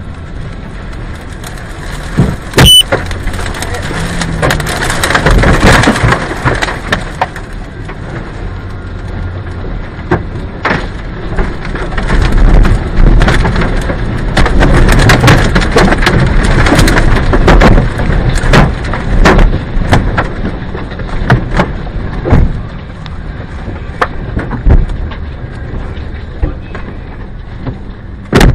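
Tornado-force wind and rain battering a car, heard from inside the cabin: a loud, rushing roar with many sharp knocks of debris striking the car, the hardest about three seconds in and another near the end. The roar swells heavily for several seconds around the middle.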